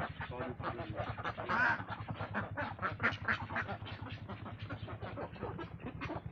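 A flock of Khaki Campbell ducks quacking continuously, many short calls overlapping, with one louder call about a second and a half in. A steady low hum runs underneath.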